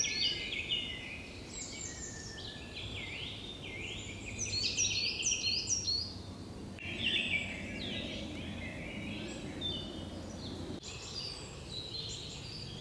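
Woodland birdsong: several songbirds singing in repeated bursts of quick chirps and trills, over a steady low background noise.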